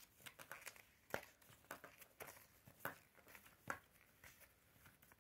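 Pages of a paper instruction booklet being flipped quickly: faint paper rustles and flicks, about half a dozen of them.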